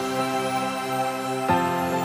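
Soft background music: sustained chords that change about a second and a half in.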